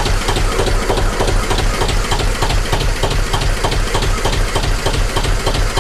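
Vintage Petter McLaren B2 diesel engine idling in neutral with a steady, even beat, freshly refilled with SAE 30 mineral oil and run for a few minutes to circulate the new oil.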